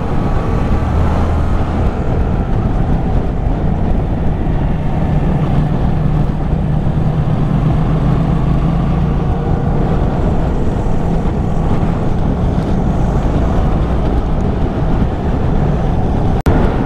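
Yamaha motorcycle engine running under way at a fairly steady speed, heard from the rider's position, with a brief dropout near the end.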